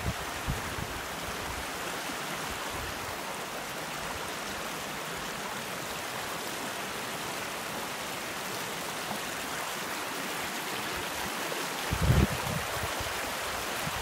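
Water cascading and splashing down a rocky slope, a steady rushing hiss. A brief low thump comes about twelve seconds in.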